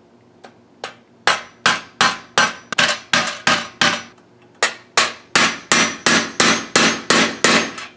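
Claw hammer peening copper-wire rivets into a phosphor-bronze breastplate, backed by a sledgehammer head used as an anvil. A couple of light taps lead into a quick run of sharp, ringing metal-on-metal strikes, about three a second, with a brief pause midway.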